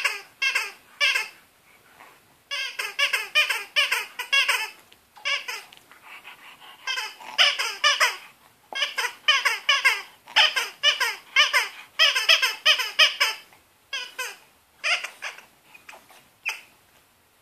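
Red rubber spider toy squeaking as a French bulldog chews it, in quick runs of short squeaks that each slide down in pitch, with brief pauses between runs.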